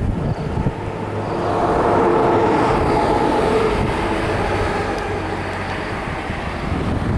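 A vehicle passing out of view: a steady hum that swells to its loudest about two seconds in and then slowly fades, with wind buffeting the microphone.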